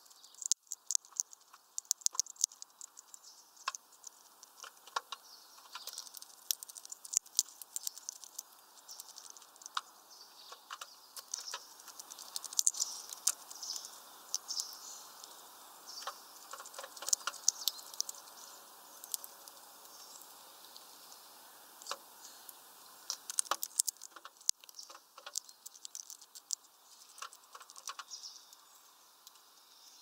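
Small bird feeding at a window seed feeder: irregular quick clicks and taps of beak and feet on the feeder and seed, coming in flurries with short pauses.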